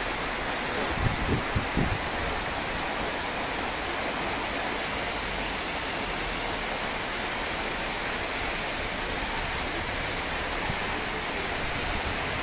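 Heavy rain pouring down in a steady, dense hiss. A few brief low bumps come a second or two in.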